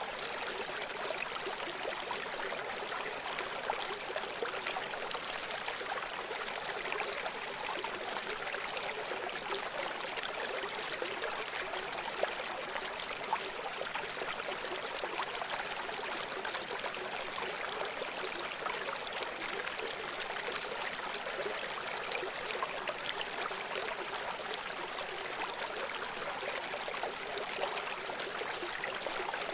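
A running stream: water flowing and splashing over rocks, a steady rushing with fine gurgling detail and no deep rumble.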